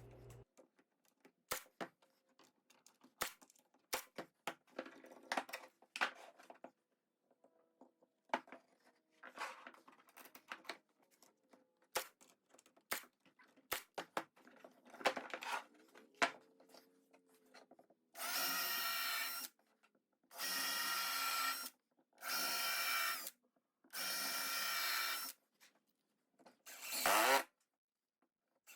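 A few sharp clicks and light handling of wood pieces, then a power drill driving screws into plywood in four steady runs of about a second and a half each, with a shorter fifth run near the end.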